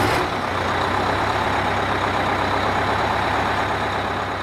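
A heavy vehicle's engine running steadily with a low hum, fading out near the end.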